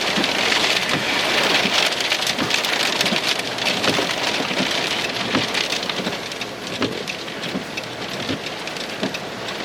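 Heavy rain pattering on a car's roof and windshield, heard from inside the car as a dense hiss full of fine drop ticks, easing a little in the second half.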